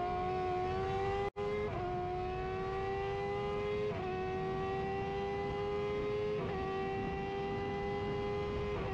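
F1000 single-seater's 1000 cc motorcycle-derived racing engine at full throttle, heard onboard, pulling hard out of a corner down a straight. Its pitch climbs steadily and breaks with a short dip four times, about every two seconds, at each upshift. The sound drops out for a split second about a second in.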